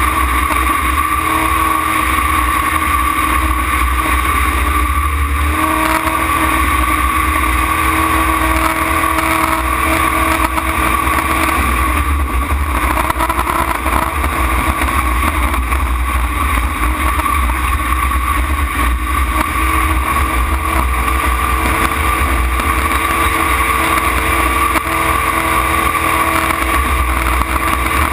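Tunnel-hull racing jet boat's engine running hard at race speed, heard from the cockpit: a loud, steady drone with small shifts in pitch about five and twelve seconds in.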